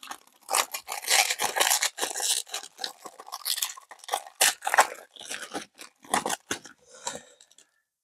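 Plastic wrapper of a trading card pack crinkling and tearing in dense, irregular crackles as it is worked open by hand; the pack is hard to open. The crackling stops near the end.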